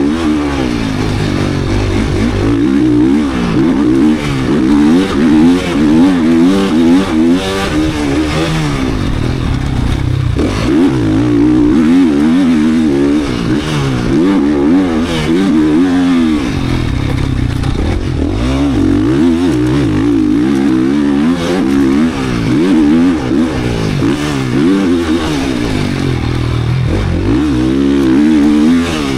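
GasGas 450 motocross bike's single-cylinder four-stroke race engine under hard riding, revving up and falling off over and over as the throttle is worked, its pitch rising and dropping every second or two.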